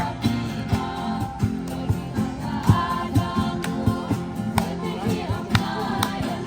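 Music: a song with singing, guitar and a steady drum beat.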